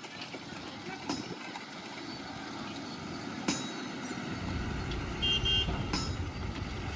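Heavy diesel machinery running steadily, its low rumble growing louder about four seconds in, with a few sharp knocks and two short high beeps about five seconds in.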